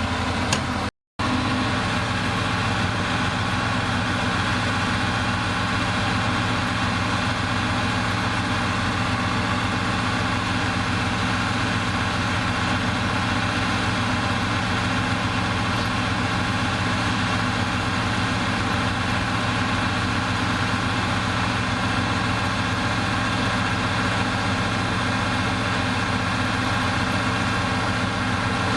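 Heavy earthmoving machine's diesel engine idling steadily, broken by a brief gap about a second in.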